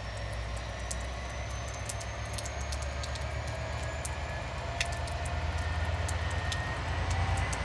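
Diesel locomotive 2044 005 rumbling steadily as it approaches slowly, hauling a freight train of hopper wagons, with a faint whine slowly rising in pitch. Irregular sharp clicks are scattered throughout, and the sound grows a little louder.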